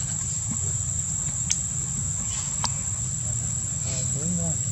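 Insects droning steadily at a high pitch, with a short wavering call near the end.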